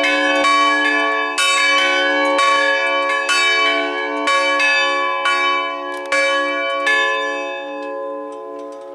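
Full peal of three swinging bronze church bells, cast in 2004 at Zbigniew Felczyński's foundry in Taciszów, ringing together. The strikes come about once a second and thin out as the ringing winds down; the last falls about seven seconds in, leaving the bells' hum to die away.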